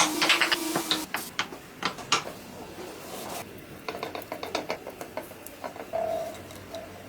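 A power tool's steady whine cuts off about a second in, then irregular clicks and ratchet-like mechanical knocks of workshop tools being worked.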